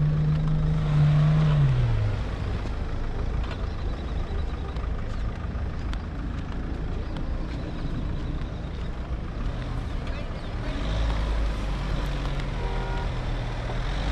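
Off-road SUV engine running. Its note holds steady, then falls away about two seconds in, leaving a continuous rumble. Around eleven seconds in the engine picks up again with a deeper drone.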